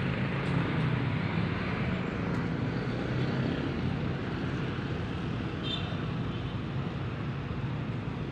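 Steady street traffic noise from passing vehicles, with a low engine drone that fades after the first few seconds and a brief high-pitched sound about six seconds in.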